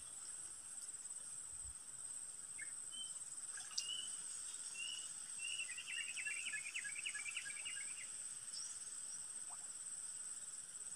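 Steady, high-pitched insect trill of the surrounding vegetation, with a bird calling a few short notes about three seconds in and a quick run of chattering song around six to seven seconds.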